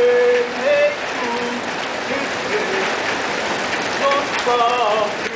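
Steady rain falling on wet pavement. A voice sings over it, with a long held note at the start and a short sung phrase about four seconds in.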